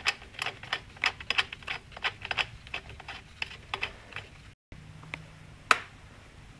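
Small irregular metallic clicks and taps as a spark plug is threaded by hand into a small two-stroke engine's cylinder head. Near the end comes a single sharper clink as a spanner goes onto the plug.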